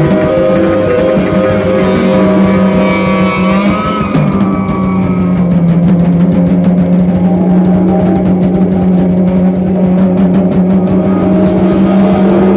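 Instrumental jazz-rock band playing loudly: electric bass, drum kit and keyboards, with held notes and one line sliding up and down in pitch about three to four seconds in. From about four seconds on the drums keep a fast, even ride on the cymbals.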